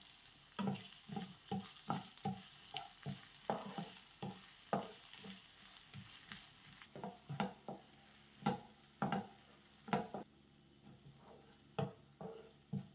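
Spatula stirring food in a frying pan: a run of irregular scrapes and knocks against the pan, about two or three a second, over light sizzling that is stronger in the first half.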